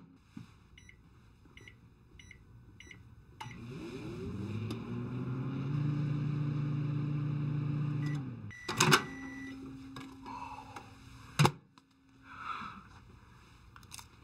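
Microwave oven heating a plate of chips and cheese: four short keypad beeps, then the oven starts with a hum that rises in pitch and runs steadily for about five seconds before cutting off. A long beep follows with a sharp clunk, and another clunk comes a little later.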